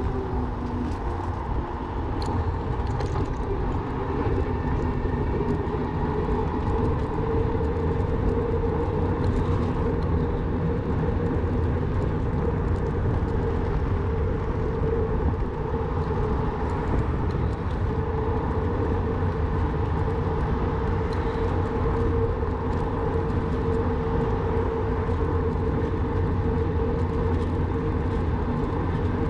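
Electric bike's motor whining at a steady pitch while riding, over a low wind-and-tyre rumble on the microphone.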